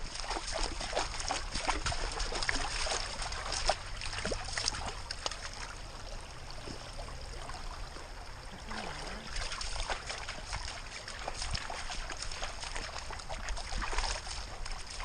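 Scuffing, rustling and irregular clicks of a dog moving through a wet creek bed and brush, picked up by a camera strapped to its back, with water trickling.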